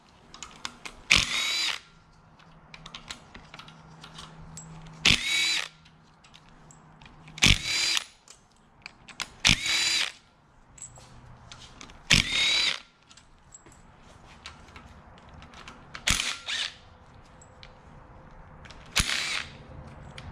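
A cordless power driver runs in about seven short whirring bursts, spinning out bolts to remove the front cover of a Honda L15B7 engine. Light metallic clicks and clinks fall between the bursts.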